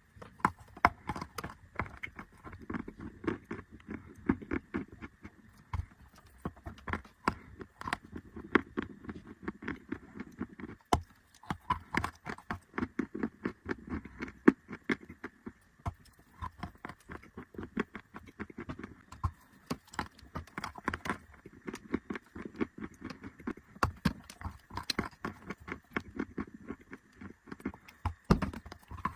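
Chalk being bitten and chewed close to the microphone: sharp, irregular crunches, several a second, with the softer grinding of chewing between them.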